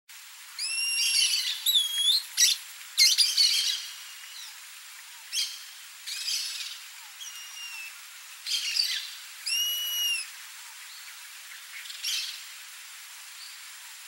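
Rusty-margined flycatcher calling: bouts of clear, arched whining whistles mixed with short harsh raspy notes, falling quiet near the end apart from one last raspy note.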